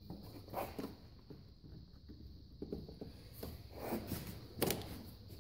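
Scattered clicks and knocks of booster-charger clamps and cables being handled and clipped onto the garden tractor's battery, the loudest knock near the end.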